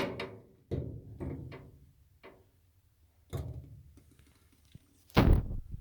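A series of separate knocks and short rattles from furnace parts being handled, with the loudest thud about five seconds in.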